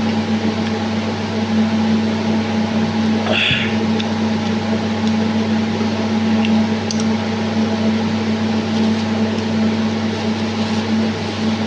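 Steady mechanical hum with an even hiss, the kind a running fan or air conditioner makes, and one brief short sound about three and a half seconds in.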